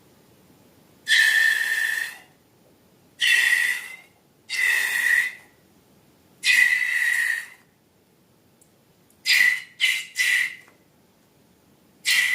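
Air let out through a balloon's neck in eight short bursts. Each burst is a steady high-pitched whistle over a rush of air. The first four last about a second each, and the later ones come quicker and shorter.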